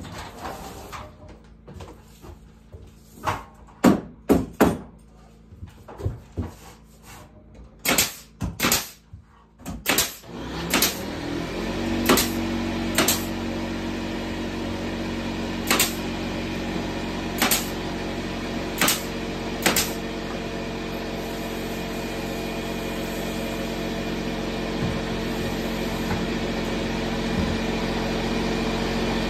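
Pneumatic nailer firing nails into wooden ceiling boards: a series of sharp, irregular shots. About eleven seconds in, an air compressor's motor kicks on, winds up, and runs with a steady hum, with more nailer shots over it for several seconds.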